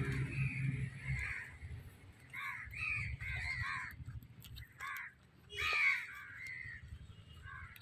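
Crows cawing, a run of short repeated caws.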